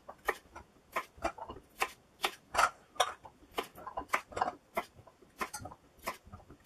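Kitchen knife cutting baby potatoes into quarters on a plastic chopping board: a string of sharp, irregular taps as the blade goes through and strikes the board, two or three a second.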